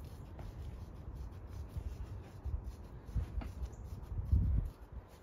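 Utility knife scraping and cutting through a strip of sod turf, an irregular rasping, with a brief low rumble a little after four seconds in.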